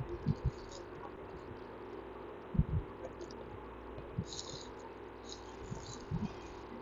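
Faint, irregular soft thumps and short scratchy strokes of a stylus writing on a tablet, over a steady low background hum.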